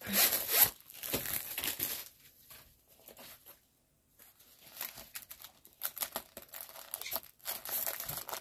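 Plastic packaging of a diamond painting kit crinkling and rustling as it is handled and opened, with a pause of a couple of seconds in the middle.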